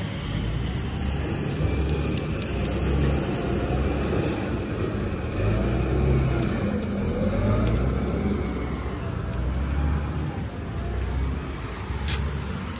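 Diesel engines of farm machinery in a muddy rice paddy running steadily with a deep rumble, the pitch wavering a little.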